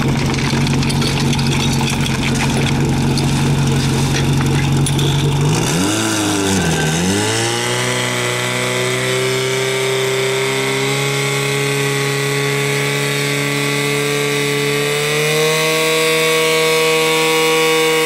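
Fire pump engine idling steadily. About six seconds in, its pitch dips and then climbs to a high steady rev, and it steps up once more near the end, as the pump is run up to push water through the hoses to the spraying nozzles.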